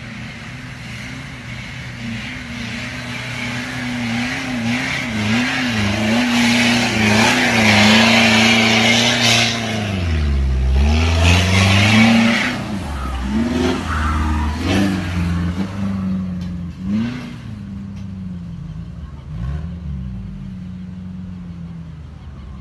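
Four-wheel-drive vehicle engines revving hard in soft sand, the pitch rising and falling again and again, with a deep drop and climb about ten seconds in. A hiss of tyres churning sand runs over the engine, loudest through the middle.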